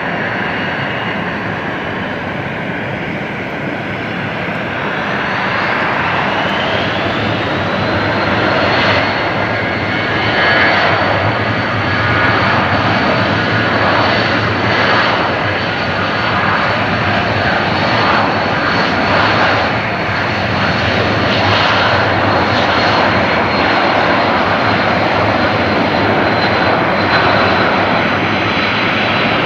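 Four Avco Lycoming ALF502 turbofans of a BAe 146-100 spooling up to takeoff power. A whine rises in pitch about five to eight seconds in, then holds steady over loud engine noise through the takeoff roll.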